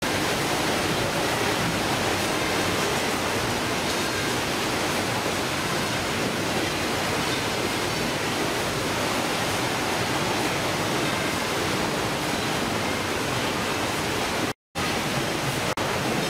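Steady, loud din of a shipboard fish-processing line, with machinery and conveyors running and water rushing. It drops out for a moment near the end.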